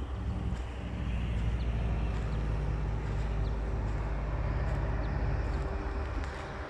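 A motor vehicle's engine running as a steady low hum, louder from about a second in and easing off near the end.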